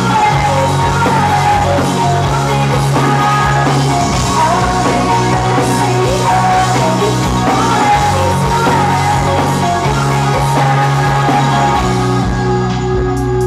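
Live rock band playing loud, with drums, electric guitars and bass under a woman singing, heard from within the crowd. About twelve seconds in the band thins out to a sparser, synth-like sound.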